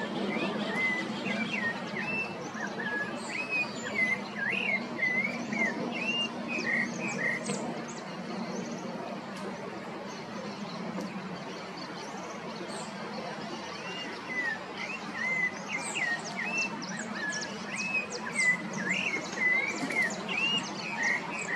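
Rufous-bellied thrush (Turdus rufiventris) singing: two phrases of varied, clear whistled notes rising and falling, each several seconds long, with a pause of about six seconds between them. A steady low hum of background noise runs underneath.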